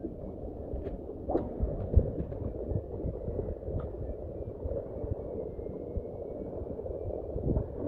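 Sea water and wind around a small boat at sea: a low, uneven rumble with soft irregular thumps.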